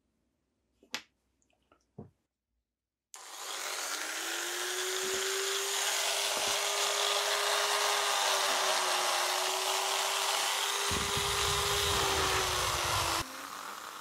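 A couple of faint clicks of small metal parts being handled, then a handheld rotary tool starts about three seconds in, its whine rising briefly and then holding steady with a strong hiss as its polishing bit is loaded with polishing compound and run against small nickel-plated parts. Near the end the sound drops suddenly to a quieter level.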